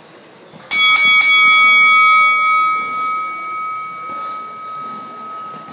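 A boxing round bell struck three times in quick succession about a second in, then one bright tone ringing on and slowly fading.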